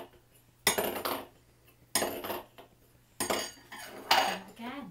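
Four sharp metallic clinking strikes, about one a second, each ringing briefly before dying away.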